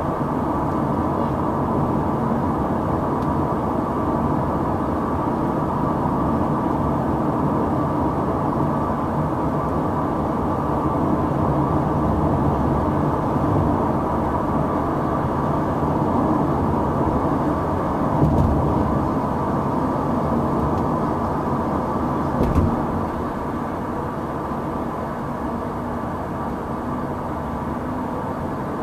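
Steady in-cabin engine and road noise of a Buick Regal with a supercharged 3.8-litre V6, cruising at an even speed. There are two brief thumps, about 18 and 22 seconds in, and the noise is slightly quieter over the last few seconds.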